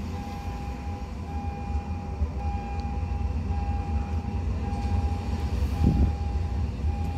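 EN57-type electric multiple unit approaching along the track, a low rumble growing steadily louder as it nears. A steady high beep repeats about once a second over it.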